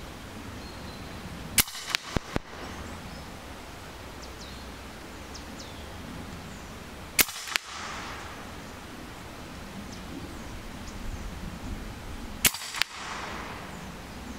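Three shots from an EDgun Leshiy 2 regulated semi-automatic PCP air rifle in .22, about five seconds apart, each a sharp crack followed within half a second by one to three fainter sharp clicks.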